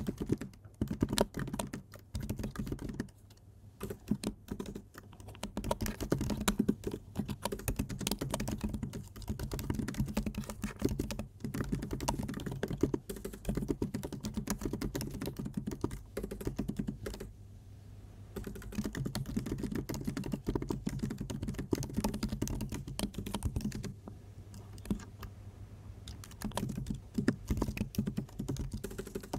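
Typing on a computer keyboard: rapid, irregular runs of keystrokes with a few short pauses.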